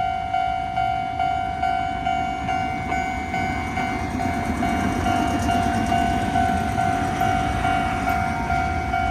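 Japanese railway level-crossing warning bell ringing over and over, a little over two strikes a second, while a train rumbles through the crossing, loudest around the middle.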